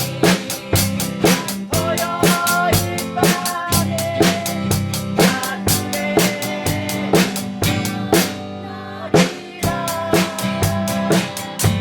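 Music with a steady drum-kit beat under a bass line and held melody notes. The drums drop out for about a second near the end, then come back in.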